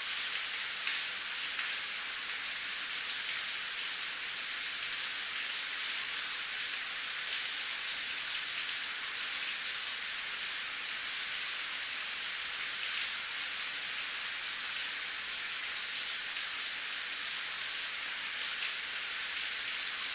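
Steady rain falling: an even, high-pitched hiss of many drops, with scattered individual drop taps standing out now and then.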